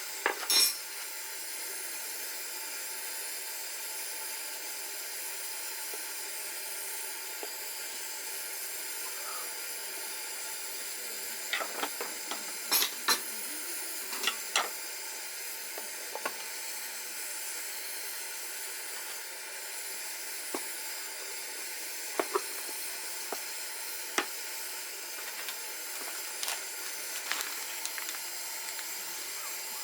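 A steady hiss, like sizzling or steam, with a few short sharp clicks and taps scattered through it.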